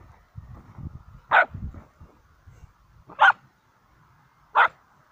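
Samoyed puppy barking three times, short sharp barks about a second and a half apart. Softer footsteps in snow come under the first couple of seconds.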